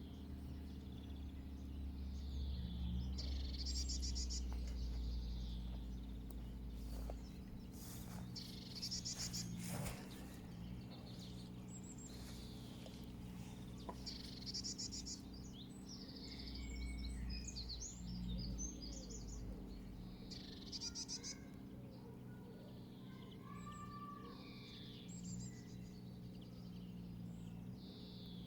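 Wild birds chirping and singing in short repeated phrases, over a low rumble of wind that swells and fades twice.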